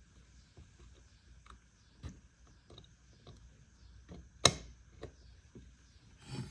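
Small metal clicks and taps of a punch and rifle sight parts as the spring-loaded ball detent of a Galil rear sight is pressed down and the sight is pushed over it, with one sharp click about four and a half seconds in.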